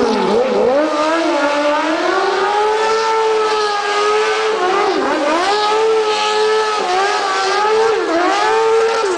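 Small red buggy's engine revving hard while it drifts in tight doughnuts. The engine is held at high revs, its pitch dipping and climbing back several times, most sharply near the start and about five and eight seconds in.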